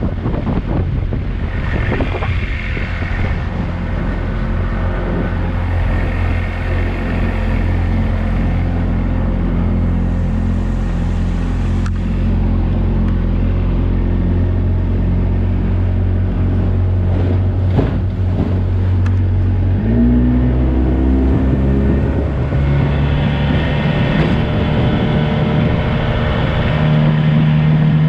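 Johnson 35 hp two-stroke outboard motor running under way at speed. Its note shifts about twenty seconds in and then climbs again over the last few seconds, with wind and water noise underneath.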